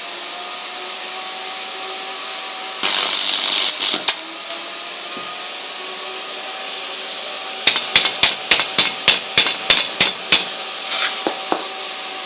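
Locally made welding transformer humming steadily. About three seconds in, a welding arc crackles and hisses for about a second. Later comes a quick run of about a dozen sharp metal taps, about five a second, with a few weaker taps after.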